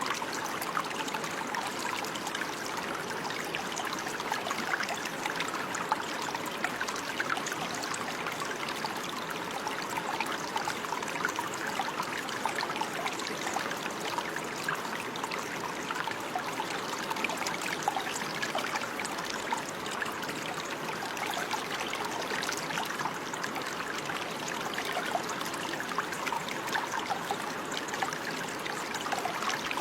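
Water running steadily over stones in a small stream, a continuous babbling trickle with many small splashes and no change.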